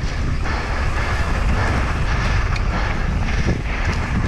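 Wind buffeting the microphone over the steady rumble and rattle of a mountain bike descending fast, at about 25 km/h, on a dry, dusty dirt trail.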